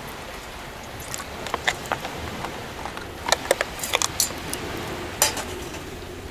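Metal camp kettle being handled: a run of light clinks and taps of metal on metal, scattered over about four seconds, over the steady wash of surf.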